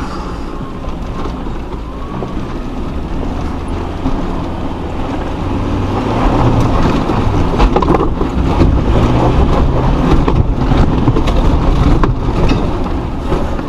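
Off-road 4x4's engine pulling at low speed over a rough track. It gets louder about six seconds in, with scattered knocks and rattles from the terrain.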